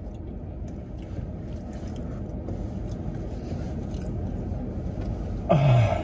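Steady low rumble inside a car's cabin, with faint eating sounds from a man spooning a Frosty. Near the end, a man's loud, drawn-out vocal exclamation that falls in pitch.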